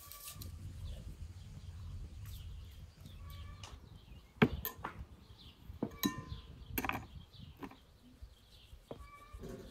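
Food-prep clatter: a few sharp clicks and knocks of a metal dough scraper and baking tray against a wooden board, the loudest about four and a half seconds in, with short high calls and a low rumble behind.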